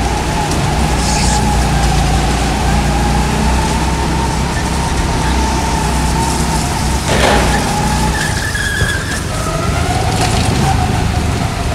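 Go-kart running at speed around a track: a steady low motor drone with a steady whining tone over it. There is one short sharp knock about seven seconds in.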